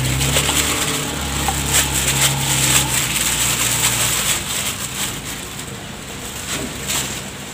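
Thin plastic bag, worn as a glove for kneading, crinkling and rustling as it is peeled off a wet hand. A low steady hum runs underneath for the first four seconds or so.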